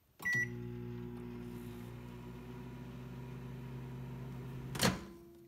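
Black+Decker microwave oven: a short keypad beep, then its steady hum as it runs. About five seconds in, a sharp click as the door is pulled open, and the hum stops.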